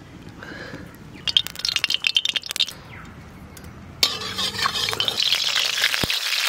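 A metal spatula clinking and scraping against a metal kadai, then from about four seconds in a steady crackling hiss as mustard oil heats in the pan over the fire.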